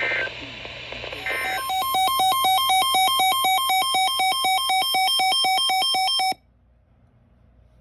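Emergency Alert System broadcast: two short digital data bursts of the end-of-message code, about a second apart. Then a loud electronic alert tone comes in, a buzzy warbling trill that lasts about five seconds and cuts off abruptly.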